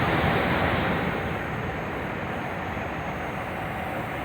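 Steady rush of airflow and engine noise on an airliner at cruise altitude, an even roar with no distinct events, slightly louder for the first second before settling.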